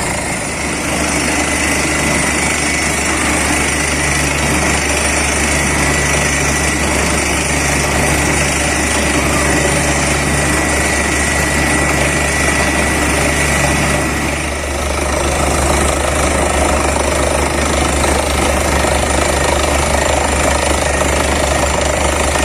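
Borewell drilling rig at work: a rapid, continuous hammering from the down-the-hole air hammer over the steady running of the rig's engine and air compressor. The sound dips briefly about two-thirds of the way through.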